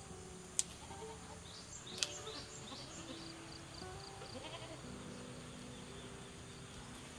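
Two sharp snaps about a second and a half apart: cassava leaf stems being broken off by hand. Under them, soft background music with long held notes, high insect chirps and a faint animal bleat.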